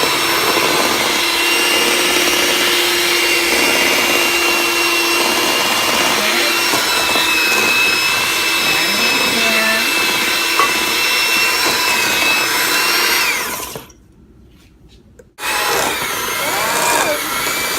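Electric hand mixer running steadily as it beats cookie batter. Its motor winds down and stops about 13 seconds in.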